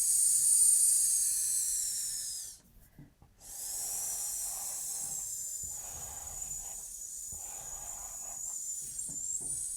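A person's voice holding a long, voiceless "sss" (the English S sound) as a steady hiss, twice: a louder one of about three seconds, then after a short break a softer one of about seven seconds.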